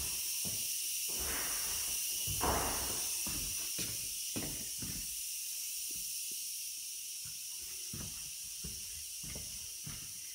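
Footsteps on a tiled floor and knocks from a hand-held camera, irregular and about twice a second, over a steady high hiss.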